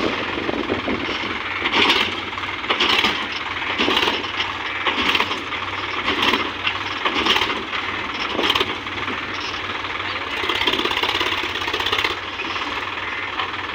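Sonalika tractor's diesel engine running as its tipping trolley is raised to dump soil. Irregular clattering bursts come about once a second as the load slides out.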